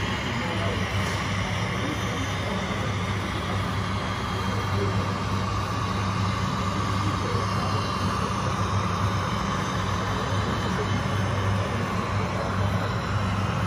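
Steady vehicle-like drone with a strong low hum, from radio-controlled model trucks running, with no sudden noises.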